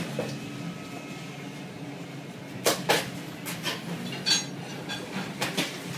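Scattered clinks and clatter of dishes and metal utensils being handled in a commercial kitchen, one of them ringing briefly, over a steady low hum.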